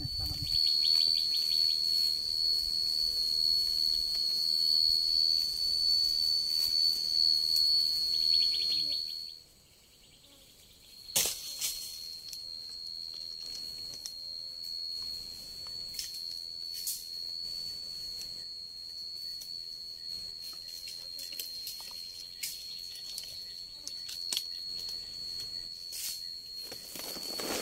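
Insect call, a steady high-pitched trill held on one unbroken tone. It breaks off about nine seconds in and comes back quieter after a sharp click about two seconds later, with a few scattered clicks or knocks over it.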